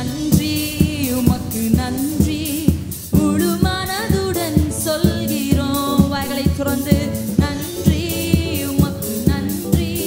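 Tamil Christian worship song sung with a band: a sung melody over a steady beat.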